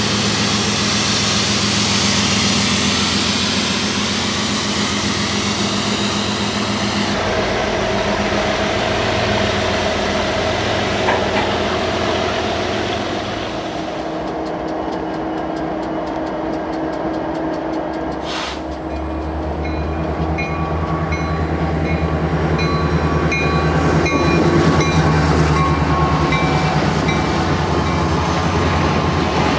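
Freight trains passing: diesel locomotive engines running and railcars rolling by, over several spliced shots. A series of short high tones repeats through the last part.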